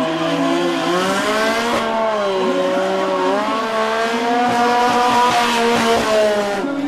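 Motorcycle engine held at high revs with its rear tyre spinning and squealing in a smoky burnout, the pitch wavering up and down as the throttle and wheelspin vary.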